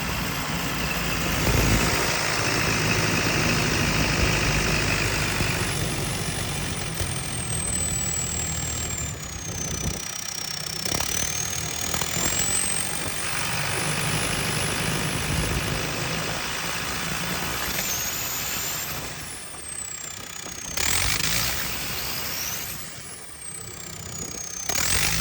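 JCB 220 excavator's EcoMAX diesel engine running with a misfire, the fault the owner is showing. Its level and note dip and change a few times, and a faint high gliding whine sits above it.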